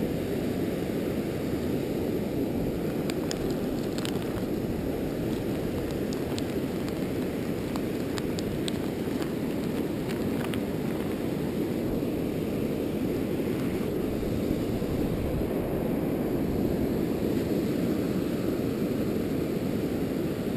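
Steady low rush of ocean surf and wind on an open beach, unbroken throughout. A few faint small ticks come through as a fishing hook and a soft plastic bait are handled.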